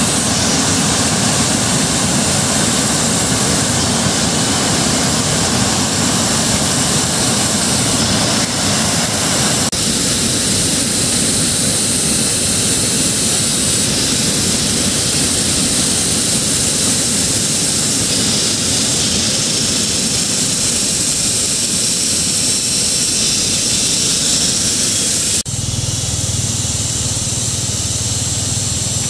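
Mountain stream rushing, a loud steady roar of water that shifts abruptly about ten seconds in and again near the end.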